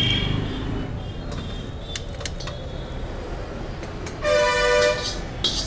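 Steady street background with a vehicle horn honking once for nearly a second about four seconds in, the loudest sound here. There are a few sharp clicks around it.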